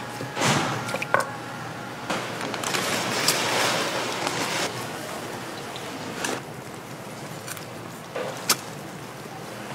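Broth sloshing and splashing in a stainless steel pot as skewered fish cakes are put in and moved about, with a longer stretch of splashing a couple of seconds in. Metal tongs and a mesh strainer knock sharply against the pot a few times.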